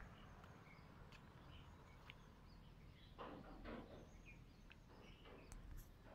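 Near silence: faint outdoor ambience with a few faint, short bird chirps and two soft scuffs a little past three seconds in.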